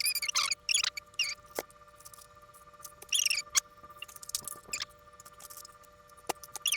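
Short squeaky rubbing sounds and a few sharp clicks as miniature figures are lifted out of their case and set down on a table.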